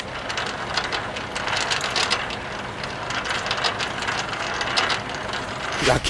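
Semi-trailer landing gear being wound up by its hand crank: a steady run of quick mechanical clicks from the crank gearing as the support legs lift.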